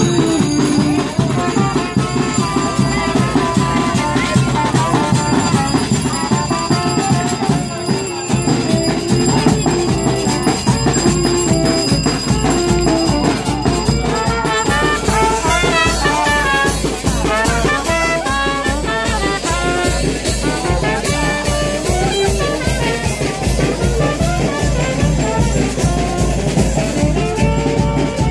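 Brass band playing: trumpet and saxophone melody over a bass drum, with the drum beat growing strong and steady about halfway through.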